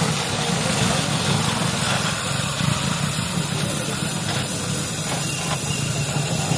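Electric arc welding: a steady low hum under a constant crackling hiss.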